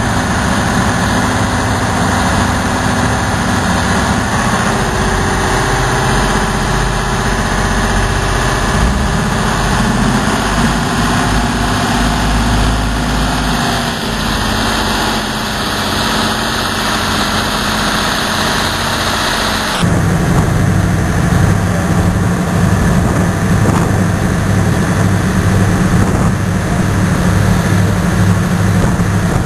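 Boat engines running steadily under way, heard from aboard a landing craft. About two-thirds of the way through, the sound cuts abruptly to a different, steadier engine hum.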